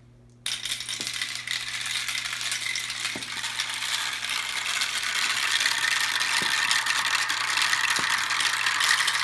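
Marbles rolling and clattering down a homemade marble run: a dense, continuous rattle that starts suddenly about half a second in and grows a little louder after about five seconds, with a few sharper clicks.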